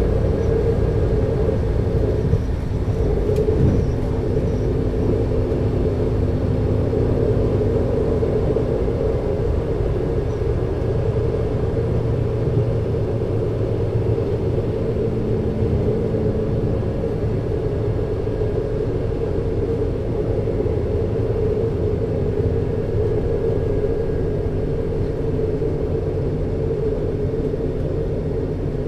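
Alstom LINT 41 H diesel multiple unit standing with its underfloor diesel engines idling: a steady low rumble.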